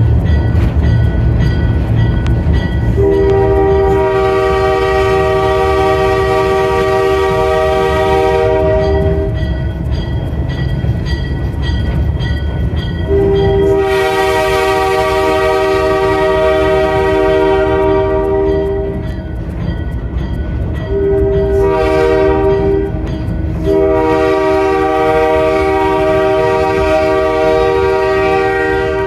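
Diesel locomotive's multi-note air horn sounding long, long, short, long: the standard warning for a grade crossing ahead. The diesel engine rumbles underneath.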